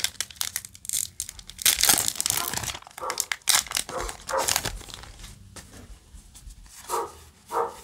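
Foil wrapper of a Yu-Gi-Oh! booster pack crinkling and tearing as it is ripped open by hand, in a run of sharp rustles over the first five seconds. Near the end come two short voice-like calls.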